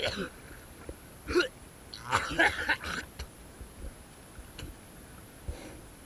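A person's voice in short bursts, the longest about two seconds in, with a few faint clicks afterwards.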